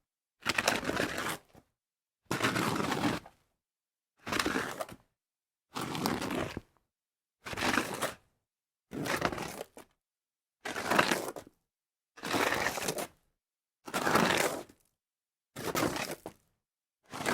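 A series of separate slides across dirt, each about a second of gritty scraping noise, with a short silence between them, about ten in all.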